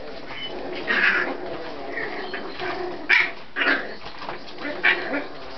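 A litter of Scottish terrier puppies yapping, with about four sharper, louder yaps among a steady jumble of softer short puppy calls.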